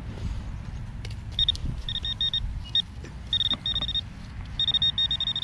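Handheld metal-detecting pinpointer beeping in short, high, rapid trains as it is probed through a dug hole in the soil. The beeps run faster and longer near the end. It is signalling a metal target still in the hole, which the detectorist suspects is a nail.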